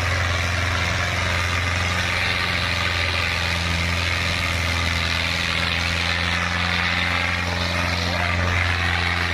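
Fiat 640 tractor's four-cylinder diesel engine running steadily under heavy load as it pulls a disc harrow, with a strong low hum that hardly changes.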